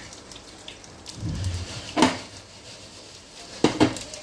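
Kitchen utensils knocking and clinking, a sharp clack about two seconds in and two quick ones near the end.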